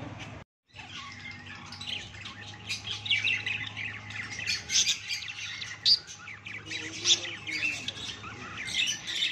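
Caged cockatiels and a budgerigar chattering: a busy stream of rapid high chirps with sharp squawks, starting about a second in and getting busier after that.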